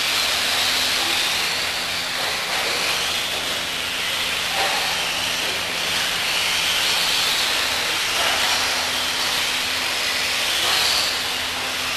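Several electric RC off-road buggies racing on a dirt track: a steady hiss of motors, gears and tyres, with a high whine that rises and falls as the cars speed up and slow down. A faint steady low hum sits underneath.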